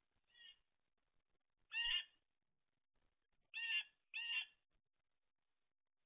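Blue jay calling: a faint call at the start, then three loud calls, the last two in quick succession.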